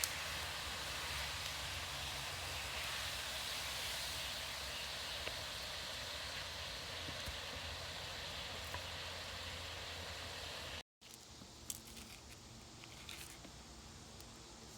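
Steady hissing of water seething around a hot rock dropped into water held in a flat goat hide. It cuts off about eleven seconds in, and faint rustling follows.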